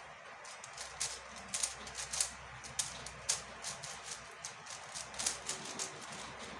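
MF5S 5x5 plastic speed cube being turned by hand during a solve: rapid, irregular clicking and clacking as its layers snap round.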